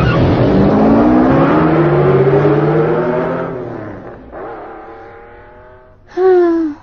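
Cartoon car engine speeding away, its pitch rising steadily as it fades out over about four seconds. Near the end comes a short loud sound that falls in pitch.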